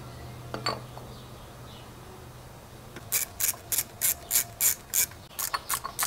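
Hand ratchet wrench clicking in quick back-and-forth strokes, about three clicks a second, as bolts are tightened down. The clicking starts about three seconds in, after a single light knock near the start.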